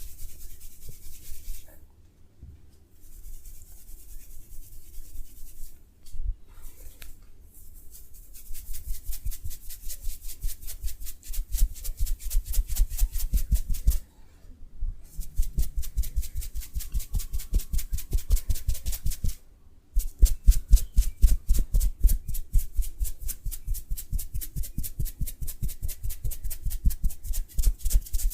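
Massage by hand: quick, even strokes rubbing on the body, several a second, in long runs. The runs break off briefly about 14 and 19 seconds in, after softer, looser rubbing at the start.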